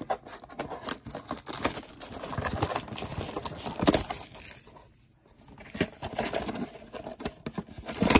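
Plastic shrink wrap crinkling and tearing as it is pulled off a cardboard trading-card blaster box by hand. There is a brief lull about five seconds in.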